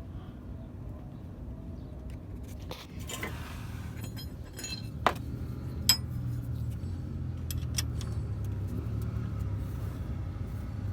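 Metal tools and parts clinking during work on a vehicle, with two sharp clinks about five and six seconds in, over a steady low hum like a running engine.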